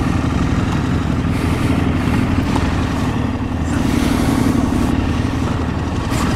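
Motorcycle engine running steadily under a wash of road and wind noise, its note strengthening briefly about four seconds in.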